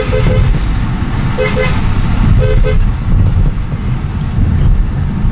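Car horn tapped in short toots: the end of a quick run of them right at the start, then two quick toots about one and a half seconds in and two more a second later. Underneath runs the steady low road and engine rumble heard inside a moving car's cabin.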